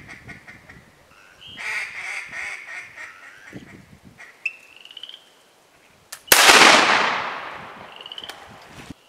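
Duck call blown in runs of rapid quacks, then a single loud shotgun shot a little past six seconds in that rings out and dies away over a couple of seconds.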